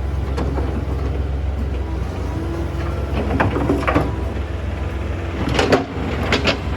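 Excavator's diesel engine running steadily while the bucket works through stony soil, with rocks clattering and scraping in two bursts, about three seconds in and again near the end.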